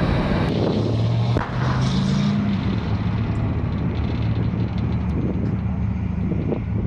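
Puma tracked infantry fighting vehicle driving across sand, its diesel engine running with a steady low drone.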